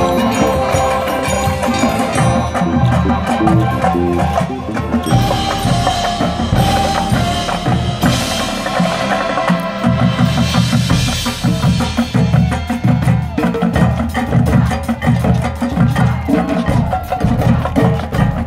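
Marching band playing, with the front ensemble's marimbas and other mallet percussion close by and drums beating out the rhythm. About halfway through the drum strokes become heavier and more regular.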